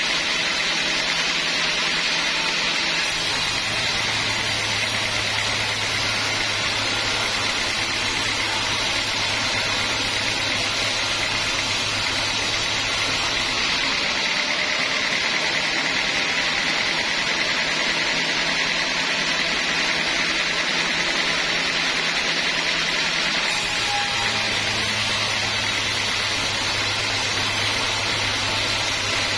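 A band sawmill running and sawing through a teak log: a loud, steady machine noise of blade and motor. A deeper hum comes in about three seconds in, drops out near the middle, and returns a few seconds before the end.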